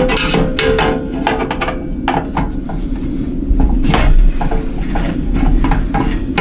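Irregular metal clinks, knocks and rattles of a screwdriver and screws against a steel computer case as screws are undone, over a steady low hum.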